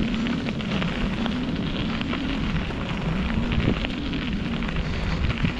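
Bicycle tyres rolling over a sandy dirt trail: a steady crackle of grit and small debris under the tyres, with a low hum that wavers in pitch underneath.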